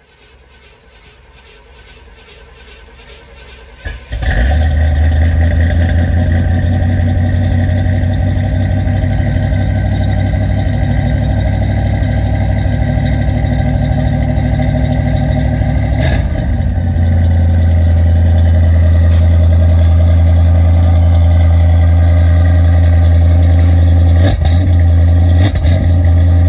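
1978 Chevrolet Corvette's 350 small-block V8 with a Flowmaster exhaust, cold-started: the starter cranks for about four seconds, then the engine catches with a loud burst and settles into a steady, deep idle.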